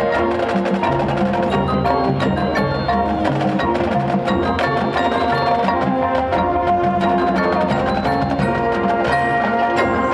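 High school marching band playing its competition field show: dense music with many quick percussive strikes over held pitched notes.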